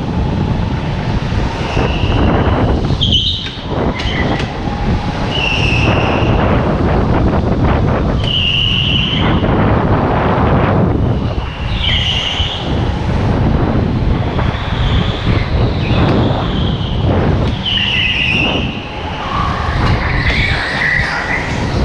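Indoor rental go-kart driven hard, heard from on board: a steady, loud running rumble, with short tyre squeals through the corners every few seconds.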